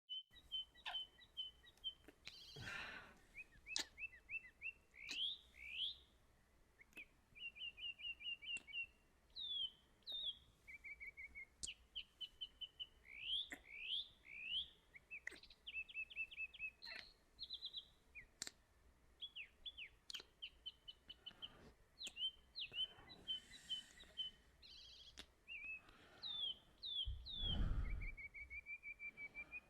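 Several small songbirds chirping and trilling, with quick repeated notes and short down-slurred whistles overlapping one another, as a background nature-sound track. A brief soft low rustle comes near the end.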